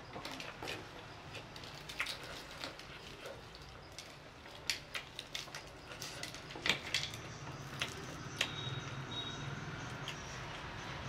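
Eating sounds: the crisp coating of fried chicken crackling as gloved hands tear it apart, with chewing, in many short irregular crackles over a low steady hum.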